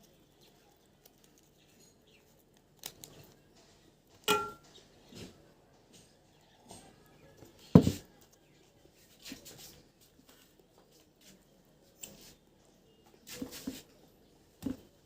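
Sparse clicks and knocks of tableware being handled, including a short ringing clink about four seconds in and a louder dull knock near eight seconds.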